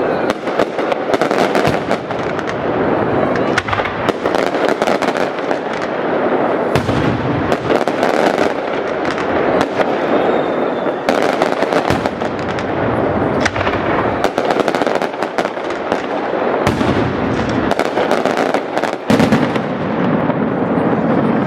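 Fireworks display: a dense, unbroken barrage of shell bursts and crackling, with many sharp bangs in quick succession.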